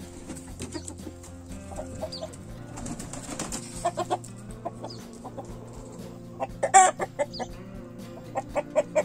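Chickens clucking in short runs of quick calls, with one louder call about two-thirds of the way through.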